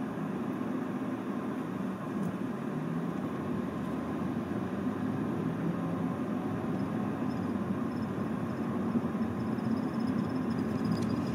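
Steady engine and road noise heard inside a car's cabin as it drives through city streets.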